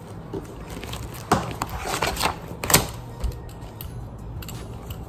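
Irregular taps and clicks of a pen and spiral notebook being handled on a desk, the loudest about a second and a half and two and a half seconds in, with music in the background.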